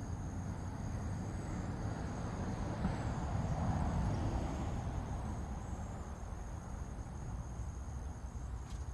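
Outdoor ambience: insects trilling steadily in high thin tones over a low rumble, which swells and fades in the middle like a passing vehicle. One sharp click near the end.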